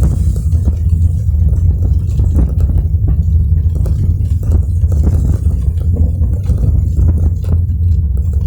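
A car driving in the rain: a steady low rumble of engine and tyres on the road, with faint scattered ticks of rain striking the car.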